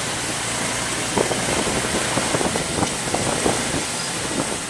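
Motorcycle tuk-tuk under way, heard from the open passenger cab: a steady rush of engine and road noise, with short rattles and clicks from the body from about a second in.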